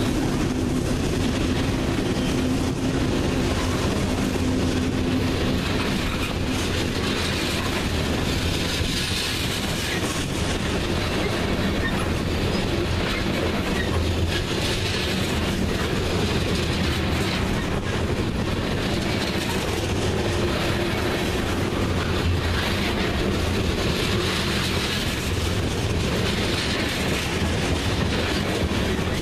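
Freight train tank cars rolling past at steady speed: a continuous rumble of steel wheels on rail with frequent sharp wheel clicks.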